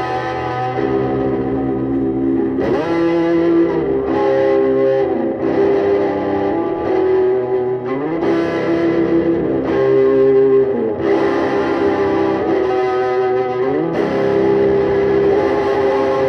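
Custom Kraft semi-hollow electric guitar playing a lead solo of sustained notes, with several slow upward string bends.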